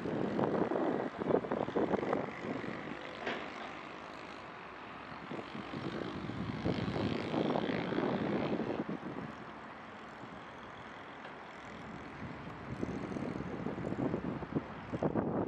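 Boeing 777 twin-jet airliner climbing out after takeoff: a crackling jet-engine rumble that swells and fades, loudest in the first few seconds and again around the middle, dropping back and then building again near the end.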